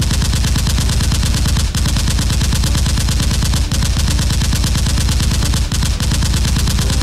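Rapid automatic gunfire sound effect, dense machine-gun fire at many shots a second with a few brief breaks, laid over a Nerf blaster battle. It starts abruptly.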